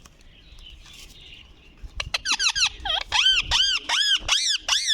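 A parrot giving a quick run of about ten high squeaky calls starting about two seconds in, each call rising then falling in pitch.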